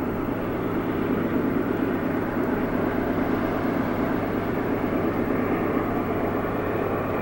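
Southern Pacific diesel pusher locomotives shoving a freight train up a steep mountain grade, their engines working under load in a loud, steady drone.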